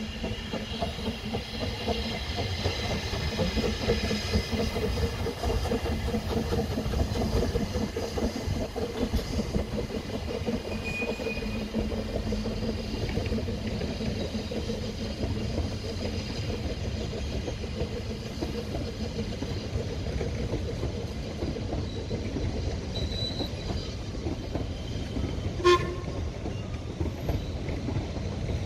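A narrow-gauge steam train passes: the steam locomotive working and its coaches rumbling by in a steady, dense rumble. Near the end there is one short, sharp sound.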